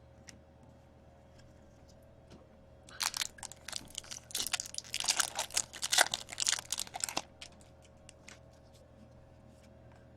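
Crinkling and tearing of a trading-card pack wrapper: a dense flurry of crackles from about three seconds in until about seven seconds, with a few faint clicks around it.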